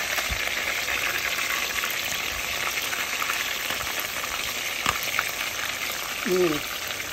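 Whitefish pieces frying in hot oil in a pot, a steady sizzle. A wooden spatula stirs them, with a few sharp knocks against the pot, the clearest about five seconds in.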